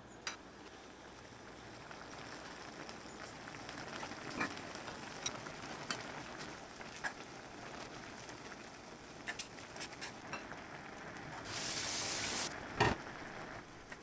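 A pot of salted, oiled water boiling with Hakka noodles in it, a steady bubbling crackle with a few light utensil clicks. Near the end a louder hiss lasts about a second, followed by a single knock.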